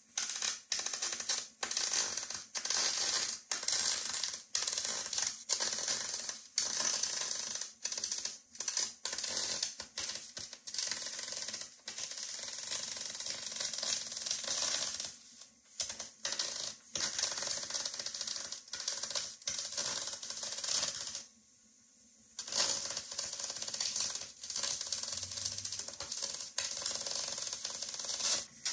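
MIG welding of 16-gauge aluminum sheet with a spool gun: the arc makes a crackling hiss in short runs, stopping and restarting many times, with a longer pause about three quarters of the way through.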